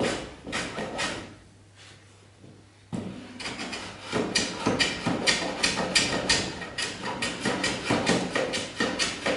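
Metal hand plane cutting along the edge of a wooden board in quick, short strokes, each a brief scraping hiss of the blade taking a shaving, about four or five a second. The strokes stop for about two seconds near the start, then resume abruptly about three seconds in.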